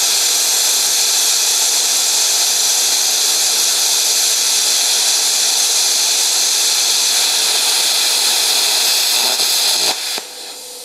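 Longevity ForceCut 62i 60-amp plasma cutter cutting through 1¼-inch-thick steel: a loud, steady hiss of the arc and air jet. About ten seconds in, as the cut breaks through, it drops off to a quieter hiss.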